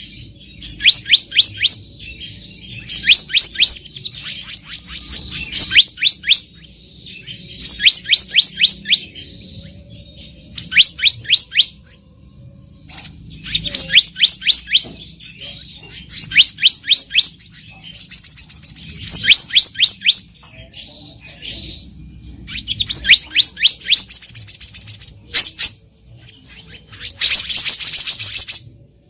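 Black-naped monarch (kehicap ranting) singing: bursts of quick, high, ringing notes, about ten to a burst, repeated every couple of seconds with softer calls between them.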